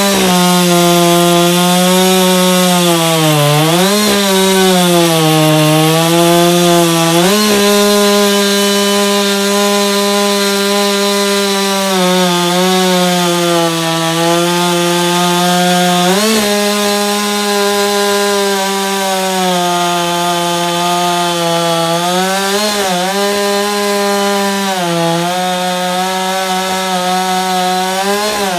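Husqvarna 560 XP 60 cc two-stroke chainsaw running at full throttle while cutting through a thick beech trunk. Its engine note sags under load twice in the first several seconds and climbs back, then holds steady with a few brief blips up and down.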